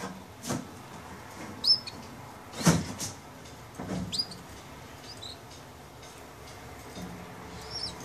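Canaries giving short, high chirps, four or five over the stretch, with several sharp knocks in between, the loudest nearly three seconds in.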